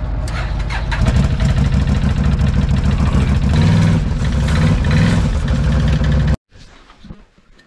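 ATV engine running, louder about a second in and rising and falling in pitch as it revs. The sound cuts off suddenly near the end, leaving only faint quiet sounds.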